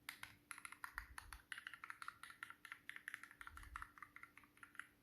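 Gateron Brown mechanical key switches on a Keychron Q0 all-metal numpad being pressed in quick succession, making a rapid run of light clacks.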